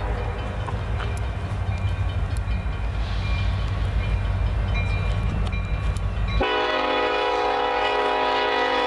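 Union Pacific SD70ACe locomotive's air horn breaking off, followed by the low rumble of the approaching train. About six and a half seconds in, the horn sounds again, a chord of several tones held steady.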